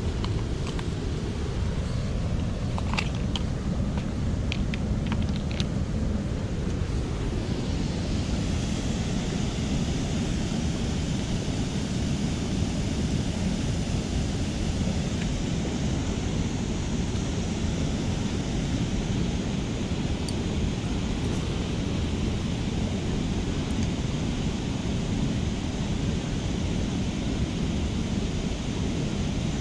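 Wind rumbling on the microphone over a steady rushing hiss, with a few sharp clicks about two to six seconds in.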